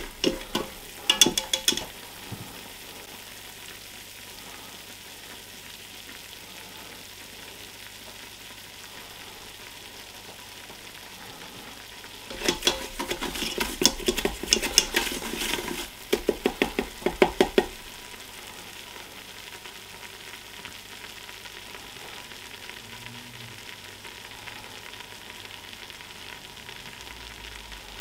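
Plastic-coated whisk stirring a butter-and-flour roux around a Ninja Foodi's cooking pot, over a steady faint sizzle of the roux cooking on sear/sauté. Quick runs of whisk strokes come briefly about a second in and again for several seconds in the middle.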